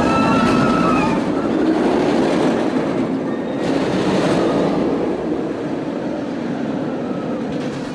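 Bolliger & Mabillard steel looping roller coaster train rushing past close by: a loud, continuous rumble of its wheels running on the steel track, with a thin high whine near the start, easing slowly as the train moves on.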